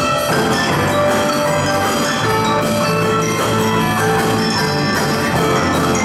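Live percussion ensemble playing: marimbas and other mallet percussion over a drum kit, with electric guitar and bass guitar, at a steady full volume.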